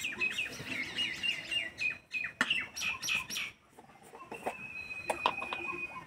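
Small birds chirping: a run of quick downward-sliding chirps in the first few seconds, then a thin high note held for about a second and a half near the end.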